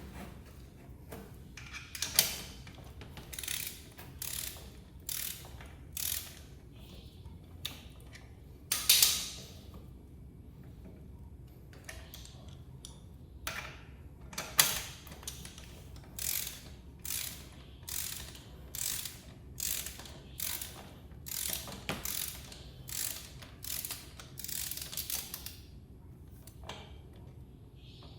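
Ratchet wrench being worked in repeated short strokes, a quick burst of clicks on each back-swing, with a pause partway through.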